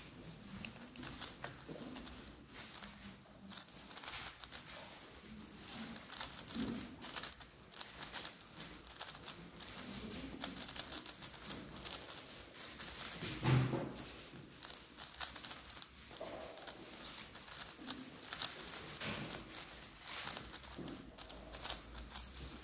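Megaminx being turned fast by hand in a speedsolve: a dense, irregular run of plastic clicks and clacks as its faces are flicked round. One louder, lower knock comes about halfway through.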